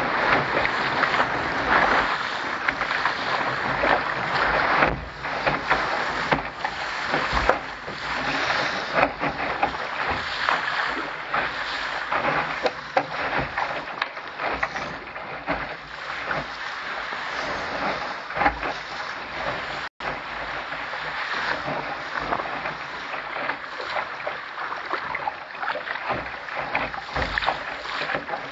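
Water rushing and splashing against the hull of a Contender sailing dinghy under way, with wind buffeting the microphone.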